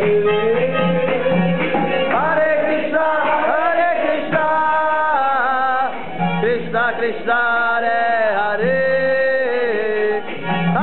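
Kirtan: men singing a devotional chant, the melody sliding between held notes, with instrumental accompaniment.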